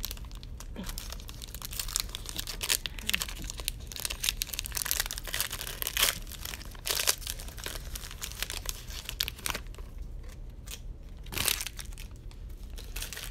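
Plastic wrapper of a football trading-card pack being torn open and crinkled by hand, with irregular crackles throughout and a louder crackle near the end.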